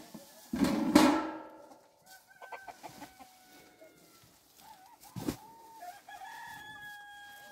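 A rooster crowing, with a loud call about a second in and a long held crow near the end, and other chicken calls between. A short knock comes about five seconds in.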